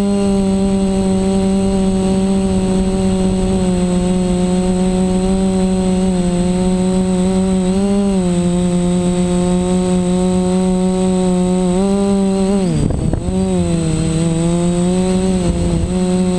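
Four DJI 920KV brushless motors and propellers of a Reptile Aphid 450 quadcopter running in flight, heard from its onboard camera: a loud, steady buzzing hum whose pitch dips and rises with throttle changes, with a sharp drop and recovery about thirteen seconds in as the throttle is chopped and brought back.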